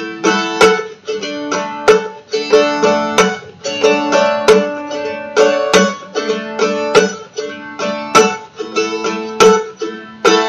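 Mandolin tuned to open D, strummed in a steady rhythm with sharp accented strokes, moving between simple one-finger chords.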